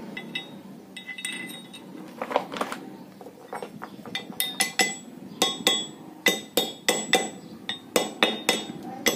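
Small hammer tapping a sleeve down onto a tractor front-wheel steering spindle: sharp metallic strikes, each ringing briefly, in a quick run of about three a second from about four seconds in. Before that, a few lighter clinks of the metal parts being handled.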